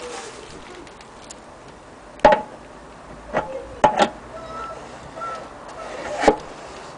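Several sharp knocks and taps, about five, irregularly spaced, some with a short ringing after them: handling knocks.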